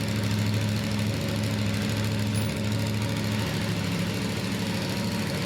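Motorcycle engine idling steadily at an even pitch.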